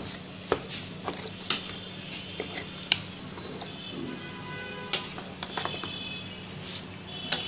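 Wooden spatula stirring chunks of beef and ginger-garlic paste in hot oil in a pan, with sharp knocks of the spatula against the pan about every one to two seconds over a light sizzle. A steady low hum runs underneath.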